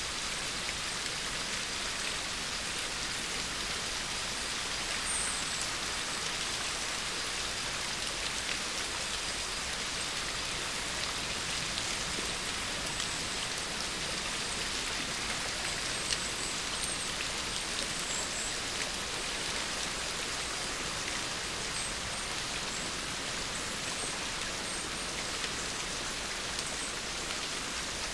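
Steady rain-like hiss, even and unchanging.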